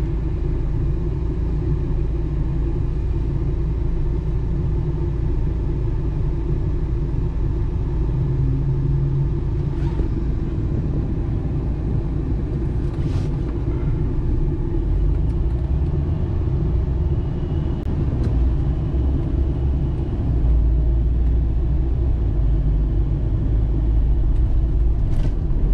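Inside a moving car's cabin: steady low engine and road rumble while driving, with the bottom end growing heavier and slightly louder from about halfway through.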